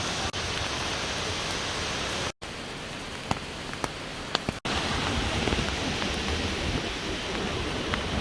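Steady rush of falling water from a waterfall. It cuts out briefly about two seconds in and comes back a little quieter, then returns to full level about halfway through after a second brief cut.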